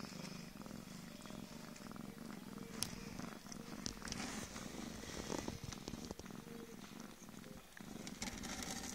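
Mother cat purring steadily while her newborn kittens nurse, with a sharp click about three seconds in and another about a second later.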